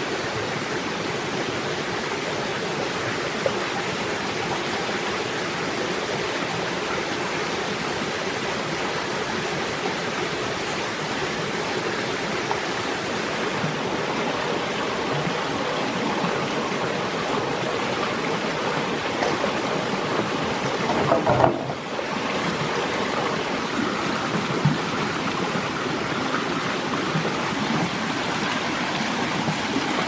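Steady rushing of a small waterfall and a stream running over rocks, with a brief louder rush about two-thirds of the way in.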